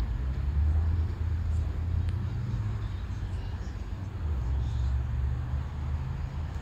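Outdoor ambience: a steady low rumble, with a few faint high ticks over it.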